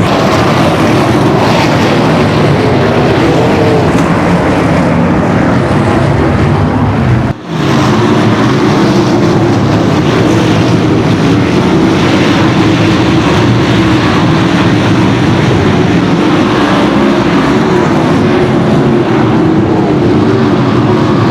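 410 sprint cars' methanol-burning V8 engines running hard as the cars race on the track, a loud, steady, dense engine din. About seven seconds in the sound cuts out for an instant and comes straight back.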